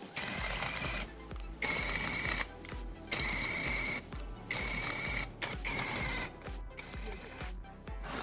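A small electric motor, like a power tool's, runs in five short bursts of about a second each with a steady whine, over background music.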